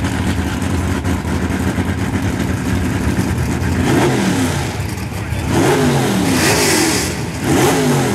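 Drag race car engines idling at the starting line, then revved in quick rising blips: once about four seconds in, in a longer run from about five and a half to seven seconds, and again near the end.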